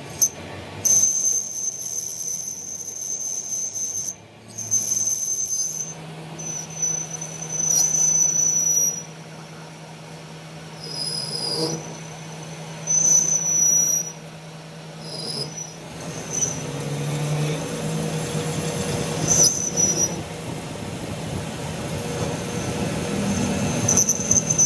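High-pitched metal-on-metal squealing in repeated bursts from metalworking on a tractor axle, with a low machine hum underneath for part of the time.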